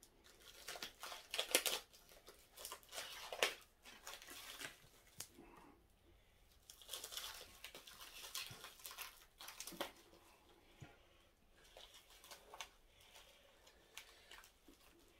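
Plastic cling wrap being torn off takeout dishes and crumpled, in irregular crinkling and tearing bursts with a few light clicks of chopsticks on plates.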